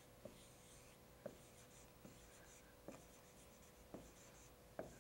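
Dry-erase marker writing on a whiteboard: faint, short scratchy strokes one after another, with a few soft knocks in between.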